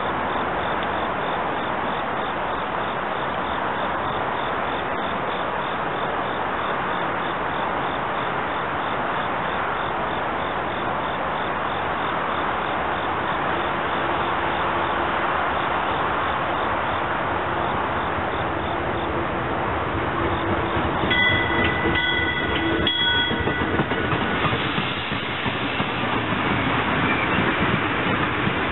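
Electric-locomotive-hauled commuter train approaching and pulling into the station, a steady rush that grows louder as it nears. Its horn sounds briefly about two-thirds of the way through, and the coaches clatter past close by near the end.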